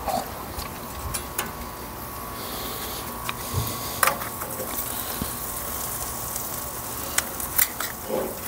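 Tri-tips sizzling on a hot charcoal grill, with scattered sharp clicks and taps of metal tongs against the steel rack and grate, the loudest about four seconds in.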